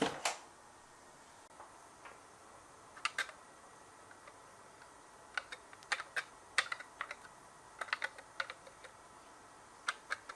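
Scattered light clicks and taps of toy minicars being handled and set down: a pair about three seconds in, then a busier run of clicks from about five to nine seconds.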